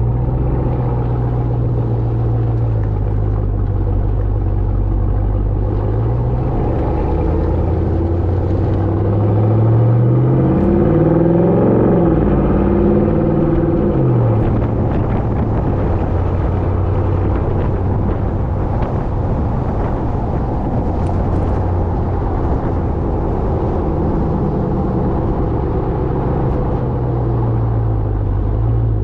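Ram TRX's supercharged 6.2-litre Hemi V8 exhaust while driving: a steady low rumble whose pitch climbs for several seconds midway, then drops back, and eases down again near the end.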